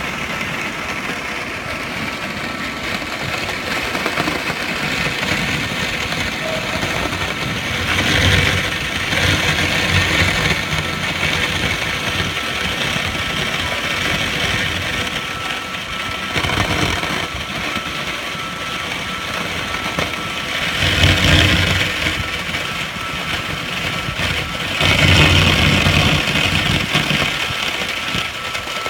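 Water jet from a hose nozzle spraying onto a junction box during a waterproof test: a steady rushing hiss with a machine hum beneath it. The rush swells louder three times, as the jet plays over the box.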